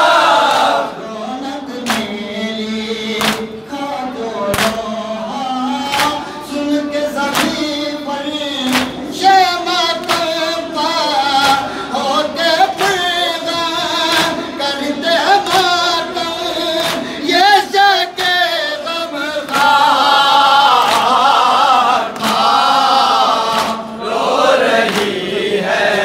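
A group of men chanting a Shia noha (lament) in unison behind a lead reciter on a microphone, with rhythmic chest-beating (matam) slaps a little more than a second apart.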